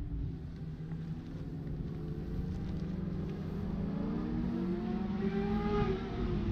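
Engines running on a race circuit as a steady rumble that slowly grows louder. About five to six seconds in, one engine rises in pitch and then falls.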